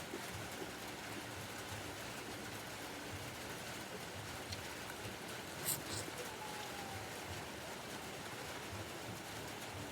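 Steady sizzle of chicken frying in hot oil, with one sharp click about halfway through.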